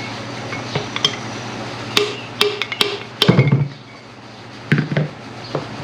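Sharp clicks and knocks of a hand tool working at the tractor's hydraulic lift-cylinder piston, picking out the old piston seal, which is hard, cracked and crumbling to powder. The knocks come irregularly, loudest in a quick cluster about three seconds in, with a few more near the end.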